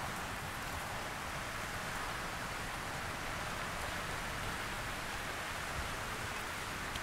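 Steady dry rustling hiss of a mass of red-sided garter snakes sliding over one another.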